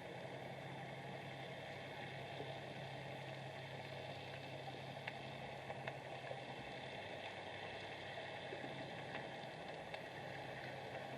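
Underwater ambient noise picked up by a submerged camera: a steady hiss with a constant low hum and scattered faint clicks.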